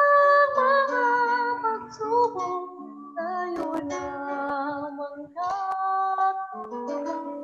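A woman singing a solo song with musical accompaniment, holding long notes with a slight waver.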